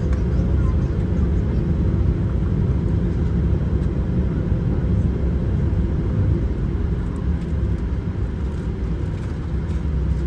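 Steady low rumble of a vehicle in motion, with a few faint ticks above it.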